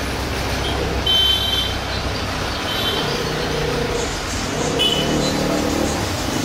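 Airbus A320's jet engines running as the airliner rolls along the runway, heard from a distance as a steady rumble, with a few short high chirps over it.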